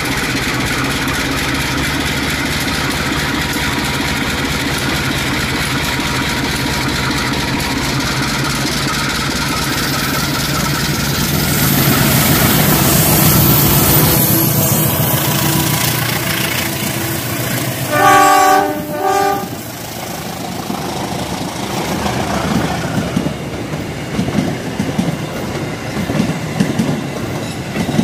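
Toy train running on its track: a steady motor drone, then two short horn blasts about two-thirds of the way through, then irregular clicking of the wheels over the track.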